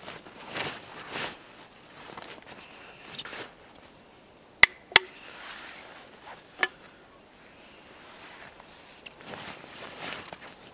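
Beer poured from a can into an enamel mug, heard as short soft rushing spells, then three sharp metallic clicks a little past the middle as the can and mug are handled and set down.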